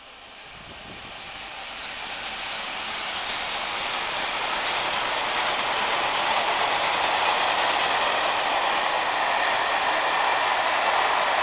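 Freight train hauled by two DB Class 185 electric locomotives passing close by. The noise grows louder over the first few seconds as the train nears, then becomes a steady rush of freight wagons rolling on the rails.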